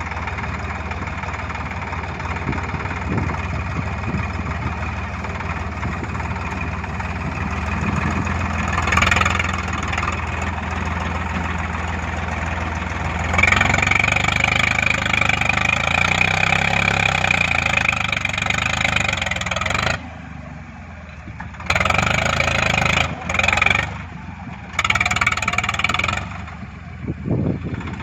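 Bull backhoe loader's diesel engine running steadily. About halfway through it gets louder with a high whine, and in the last third the sound surges and drops back several times.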